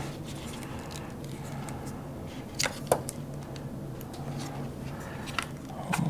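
Handling noises of unpacking drone gear, with two sharp clicks about two and a half and three seconds in and a knock near the end, over a steady low hum.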